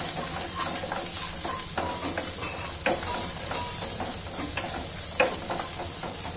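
Chopped garlic and ginger sizzling in hot ghee in a nonstick wok, stirred with a wooden spatula that scrapes and taps the pan again and again. A sharper knock of the spatula comes about five seconds in.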